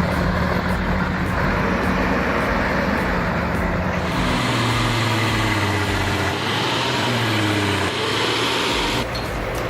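Heavy truck's diesel engine running under load, its pitch rising and falling. The sound changes abruptly about four seconds in and again near the end.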